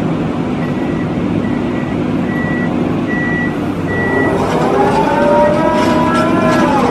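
A hydraulic piling rig's diesel engine runs steadily while a warning beeper sounds a little faster than once a second. From about four seconds in, a whine rises in pitch, holds, and drops away sharply near the end as the hydraulics lift the kelly bar and drilling tool.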